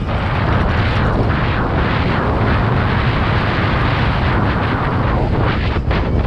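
Steady, loud wind buffeting on an action camera's microphone as a mountain bike is ridden fast across grass, mixed with the rumble of the tyres.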